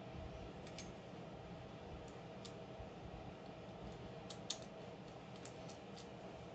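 Faint small clicks and ticks of a Beyblade Burst spinning top's plastic and metal parts being twisted and pressed together in the hands, scattered through with the sharpest click about four and a half seconds in and a quick run of them near the end.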